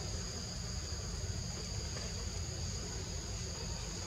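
Steady high-pitched drone of insects, two even tones held throughout, over a constant low rumble.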